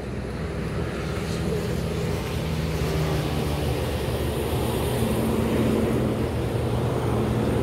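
Engine drone with a low hum, swelling gradually and easing off a little toward the end, like a passing motor.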